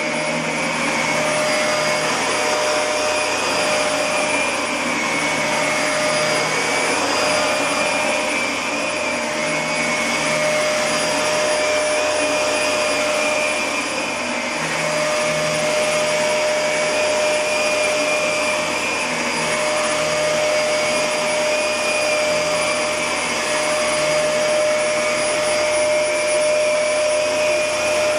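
Steady, loud whirring of a small motor and fan, with a steady whine over the rushing air.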